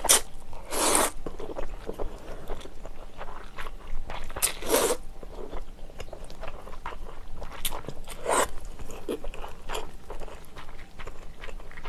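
A person slurping spicy jjamppong noodles into the mouth in several loud, noisy bursts, with close-miked chewing and small wet mouth clicks in between.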